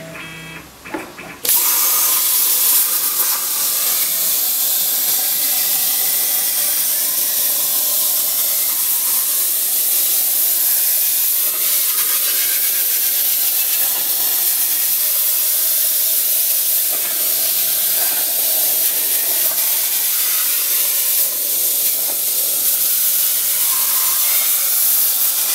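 Hypertherm air plasma cutter on a CNC table cutting steel plate: a loud, steady hiss of the arc and air jet that starts about a second and a half in.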